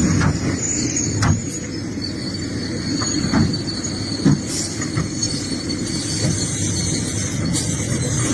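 Excavator's diesel engine running under load with a steady high-pitched metallic squeal, broken by a few sharp knocks, about a second, three seconds and four seconds in, from the bucket working rocky soil.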